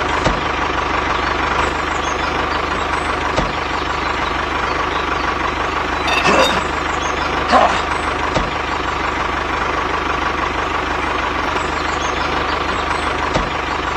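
Diesel tractor engine running steadily, with a couple of short chirps about six and seven and a half seconds in.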